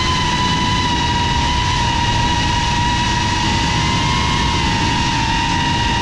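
GEPRC FPV quadcopter's brushless motors and propellers whining at a nearly steady pitch, over a low rush of air noise.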